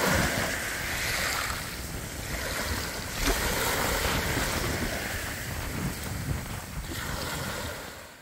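Small sea waves breaking and washing up a fine pebble beach, with wind buffeting the microphone; the sound fades out at the end.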